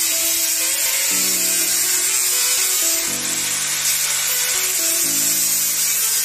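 Electric angle grinder cutting steel mesh: a steady high whine and hiss of the disc on metal. It plays under background music whose chords change about every two seconds.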